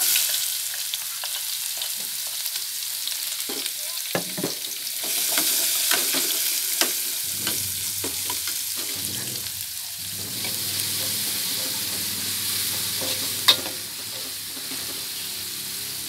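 Garlic sizzling as it fries in hot oil in an aluminium pot, with a metal spatula scraping and tapping against the pot as it is stirred. There is a sharp metal clink near the end.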